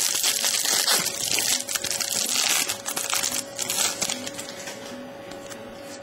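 Foil wrapper of a trading-card pack crinkling loudly in the hands as it is pulled off the cards, for about the first four seconds, then fading to soft handling of the cards.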